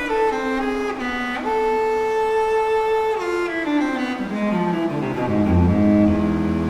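Background music played on bowed strings: a slow melody with a long held note, then low sustained bass notes coming in about three-quarters of the way through.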